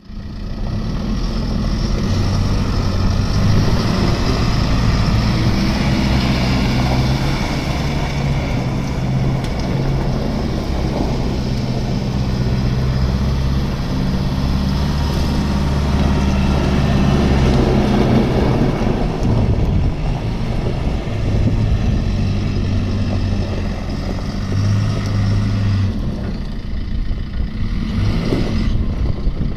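Diesel engine of a 2013 JCB 3CX 4x4 backhoe loader running steadily, its note shifting up and down a few times as the revs or load change.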